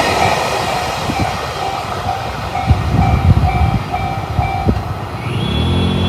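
Freight train wagons clattering over the crossing while the level-crossing alarm rings its standard JR electronic two-tone pulse. The alarm stops about two-thirds of the way in as the train clears, and music starts near the end.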